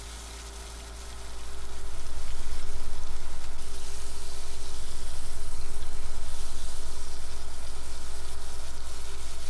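Sea robin tail searing in hot oil in a frying pan, sizzling steadily. The sizzle gets much louder a little over a second in.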